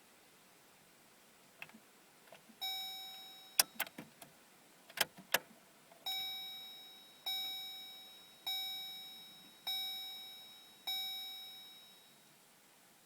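Chevy Colorado's dashboard warning chime, ringing once and then five times in a row about a second and a quarter apart, each ring dying away. Before and among the first rings come several sharp clicks, the loudest a little over three seconds in.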